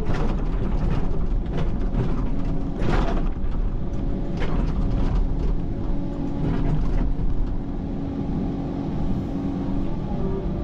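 Excavator engine running steadily under work, with the bucket scraping and knocking against boulders and dirt several times, the loudest about three seconds in.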